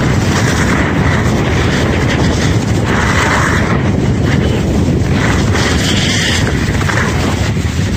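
Wind buffeting the microphone of a camera carried by a skier gliding downhill: a steady, loud low rumble, with a brighter hiss coming and going every second or two.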